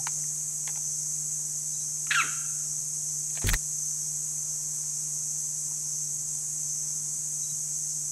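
Steady high-pitched drone of tropical insects. About two seconds in an animal gives one short squeal that falls in pitch, and a sharp click follows about a second later.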